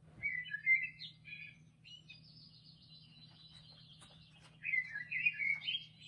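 Recording of a common blackbird singing, played back: a low, fluty warbled phrase, then higher, thin twittering, then another warbled phrase near the end.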